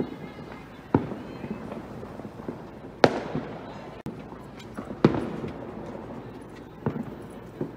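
Fireworks going off: a series of sharp bangs at uneven gaps of one to two seconds, each trailing off in an echo. The loudest are about three and five seconds in.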